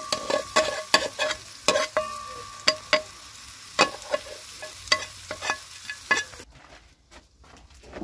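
Food sizzling in hot oil in a metal pot over a wood fire, while a metal slotted spoon stirs and scrapes it in quick, uneven clinks that set the pot ringing. The sizzle cuts off about six and a half seconds in, leaving quieter room sound with a few soft knocks.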